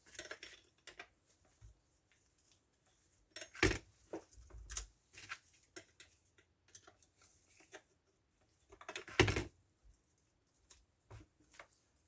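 Metal clinks and knocks of hand tools and saw parts being handled while working on a Stihl MS170 chainsaw, with scattered small clicks and two louder knocks, one about four seconds in and one about nine seconds in.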